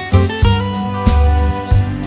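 Background music: a light, upbeat instrumental with plucked guitar over a steady bass line.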